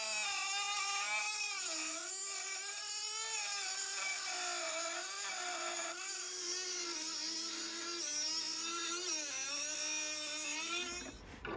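Dremel rotary tool with a small abrasive cutoff wheel cutting through rusty sheet-steel panel: a steady high-pitched whine that dips and recovers in pitch as the wheel bites into the metal, stopping near the end.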